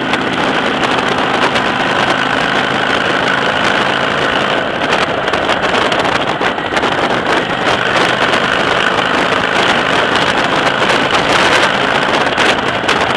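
Motorcycle engine running steadily while riding along, with wind rushing and buffeting the microphone in frequent short gusts.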